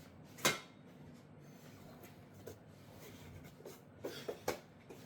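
Plastic taillight parts being handled: a sharp click about half a second in, then light rubbing and scraping, with a few small clicks and taps near the end.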